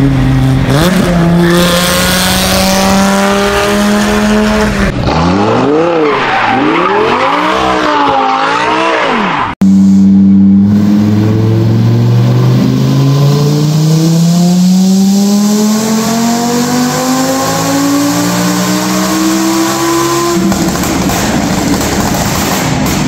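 Dodge Viper's V10 accelerating on the road, then an engine revving up and down several times. After a sudden cut, a first-generation Audi R8's V10 on a chassis dyno makes one long full-throttle pull, its pitch rising steadily for about ten seconds before it lets off.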